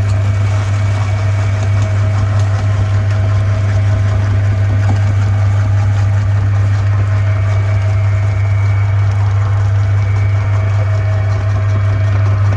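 Electric meat grinder's motor running steadily with a strong low hum.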